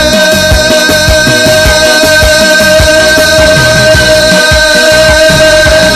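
Music from a Sudanese popular song: one long held note runs over a steady drum beat.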